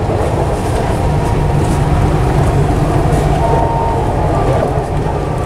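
Dubai Metro train running, heard from inside the carriage: a steady low rumble with a faint short whine about three and a half seconds in.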